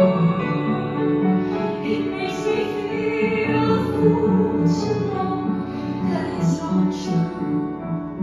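A girl singing a slow musical-theatre song into a microphone, accompanied on the piano by a steady repeating figure of notes.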